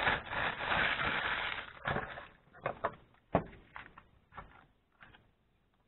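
Clear plastic bag crinkling as a new speaker driver is pulled out of it, then a few light knocks and clicks as the driver is handled and set down on the workbench.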